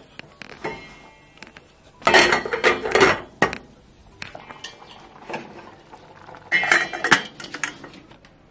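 Metal cookware clattering and clinking in two bursts, one about two seconds in and another about six and a half seconds in, each with a brief metallic ring.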